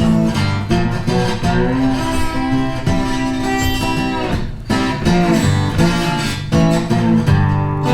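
Background music led by guitar, with a strummed acoustic guitar and a steady rhythm, dipping briefly about halfway through.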